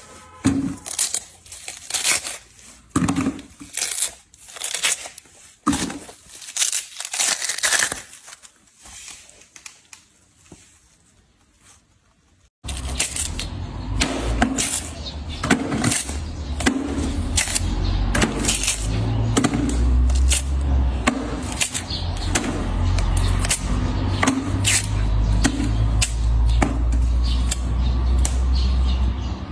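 Watermelon being torn apart by hand: crisp cracking and wet tearing of the rind and flesh in separate bursts, dying away about ten seconds in. About twelve seconds in the sound jumps louder, with dense crunching and snapping of torn melon over a steady low rumble.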